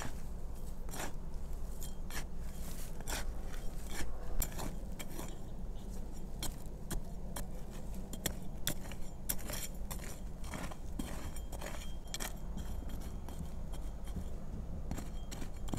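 Irregular light clicking and clinking, many small taps, over a steady low hum.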